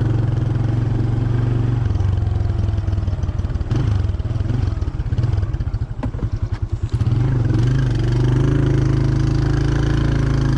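Motorcycle engine running with a steady low drone, dropping for a few seconds in the middle to a slower, uneven throb before steadying again.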